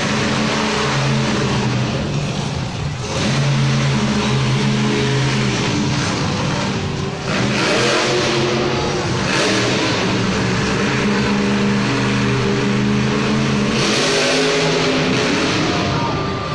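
Grave Digger monster truck's supercharged V8 engine revving up and down repeatedly as the truck drives, with louder surges about three, eight and fourteen seconds in.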